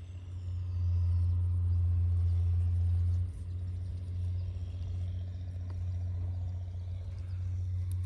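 A low, steady rumble that is loudest for the first three seconds, then drops in level and carries on.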